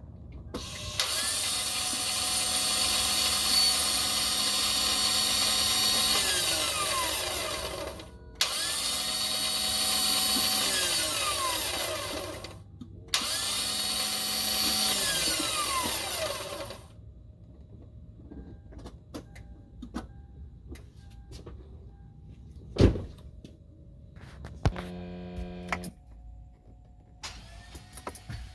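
Starter motor of a 2003 Toyota 4Runner's 4.0L V6 spinning up to a high whine three times, each time for several seconds, then winding down with a falling pitch. The starter spins freely but its gear won't engage the flywheel, so the engine is never cranked. Later there is a single thump and a short buzz.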